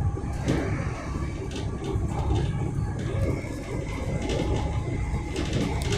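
Inside a class 385 electric multiple-unit train under way: a steady low running rumble with scattered light clicks and knocks.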